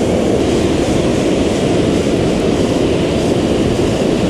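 Water pouring over a low dam into the river below, a loud, steady rush of churning whitewater.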